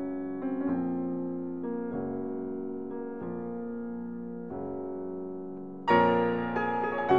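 Slow piano music: sustained chords, each struck and left to ring, changing every second or so, with a louder, brighter chord about six seconds in.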